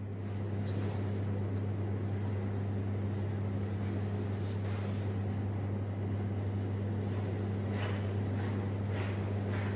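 Steady low hum of mains or air-conditioning electrical noise in a hall, with a few faint soft footfalls near the end as barefoot people walk across a wooden floor.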